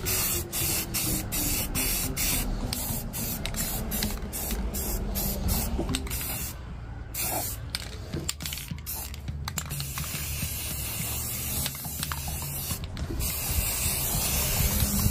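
Aerosol can of filler primer spraying in many short spurts, then in longer steady passes from about ten seconds in, with a brief pause near the end.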